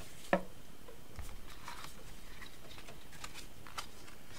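Sheets of coloured card being handled and slid into place. There is one sharp tap about a third of a second in, then faint light rustles and ticks of card against card.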